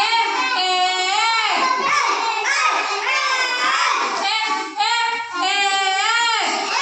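A group of young children chanting together in a loud, sing-song unison, repeating a letter sound and word the way a phonics class recites them.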